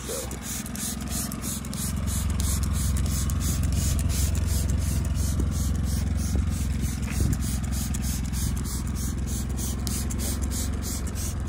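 Trigger spray bottle squirting cleaner onto truck paint in quick repeated hisses, about three or four a second. Under it runs the steady low hum of the truck's engine idling.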